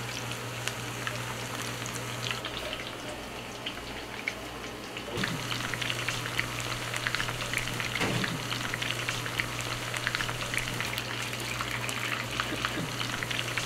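Coated pieces of meat deep-frying in a pan of hot oil: a steady crackling sizzle of bubbling oil, a little louder from about five seconds in, over a low steady hum.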